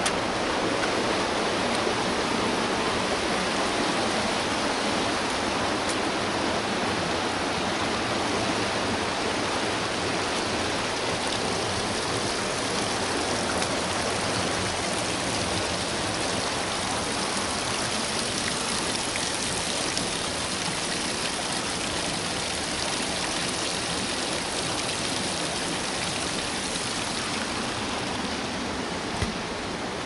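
Water from a small forest waterfall or stream rushing over rocks: a steady, even rush without letting up. One short knock sounds near the end.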